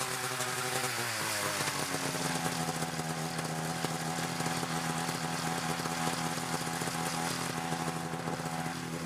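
Arctic Cat ZR 900 snowmobile's two-stroke engine coming off the throttle as the sled pulls up close. The pitch drops over about a second, then the engine idles steadily.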